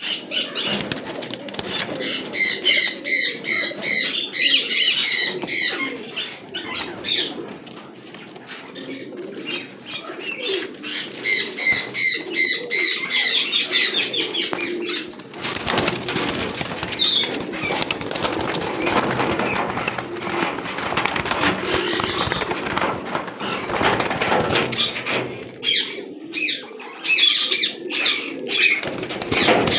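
Domestic pigeons cooing in a wire coop, with wing flaps and the rustle of feathers and straw as a bird is handled. Twice, a few seconds in and again around twelve seconds, a burst of rapid high-pitched chirping is the loudest sound.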